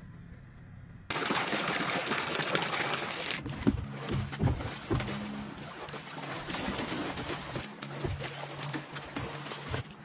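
Water splashing and sloshing in a tub as a black bear bathes, paddling and thrashing in it, with many short splashes. A low steady hum comes before it, cut off about a second in.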